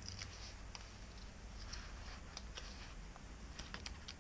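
Faint crinkling and small sharp clicks of a strip of adhesive tape being peeled from its backing and pressed onto the edge of an LCD panel.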